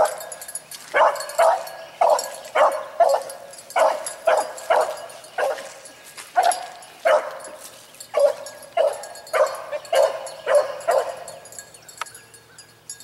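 A single hunting hound barking steadily on a rabbit's trail, roughly one to two barks a second with a couple of short pauses. It is the sign of the dog running the rabbit by scent.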